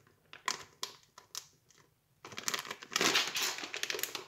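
Plastic zip-lock freezer bag being sealed: a few small clicks and rustles as the seal is pinched shut, then from about two seconds in loud, steady crinkling as the bag is pressed flat to push the air out.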